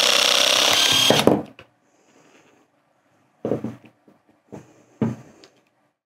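EHC13 battery-powered hydraulic crimping tool with its cable-cutting head, its motor-driven pump running steadily as the cutter cycles through a cable, then stopping suddenly about a second in. A few short knocks and clicks follow as the tool is handled.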